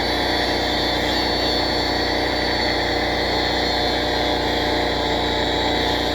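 Angle grinder with a cut-off wheel cutting into metal: a steady high whine with a grinding hiss, the hiss easing off near the end.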